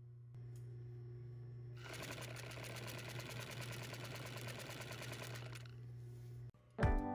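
Heavy upholstery sewing machine stitching fabric over welt cord: its motor hums steadily, then the needle runs fast from about two seconds in until nearly six seconds and stops. Guitar music comes in near the end.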